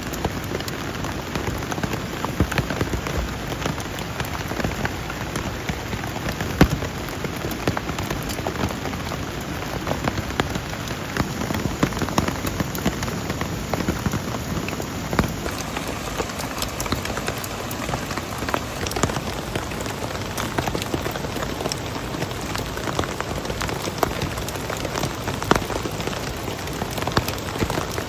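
Steady rain, with many separate drops ticking sharply close by.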